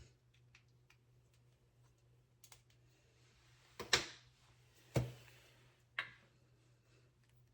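A few faint clicks, then three sharp knocks about a second apart, the middle one the loudest.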